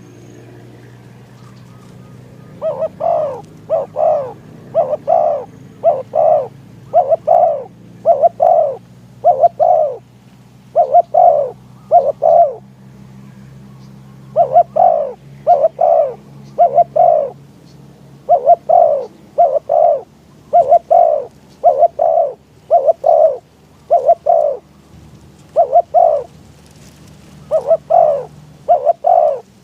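Spotted dove cooing over and over, starting about two and a half seconds in: loud short coos in runs with brief pauses between them. This is a decoy dove calling to draw wild doves to the trap.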